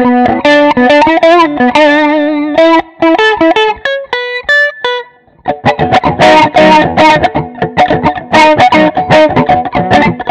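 Clean electric guitar through a Mooer GE 200 multi-effects unit on a funk preset: single-note lines with bent notes for about the first five seconds, then, after a brief pause, fast choppy strummed chords.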